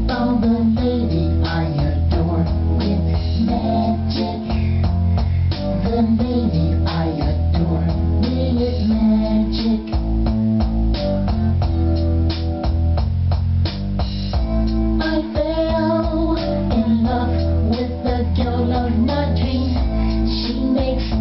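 Pop song with guitar, bass guitar and drum kit, and a singing voice.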